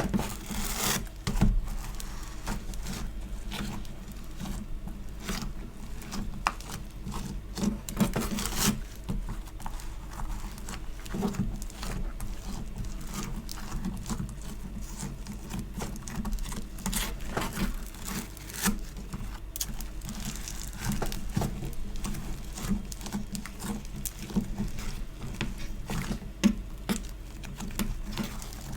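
Hands squishing, stretching and pulling apart a sticky store-bought play compound, making irregular crackling and small popping sounds.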